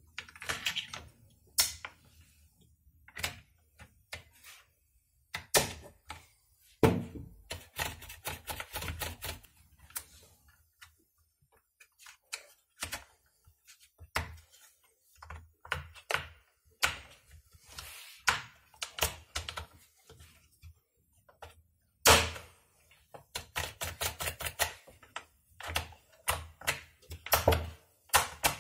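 Small metal and plastic parts of a Stihl 017 chainsaw's carburetor and throttle linkage clicking, tapping and knocking as they are fitted by hand, in an irregular run of short sharp sounds. A few knocks stand out louder, one about seven seconds in and one about twenty-two seconds in.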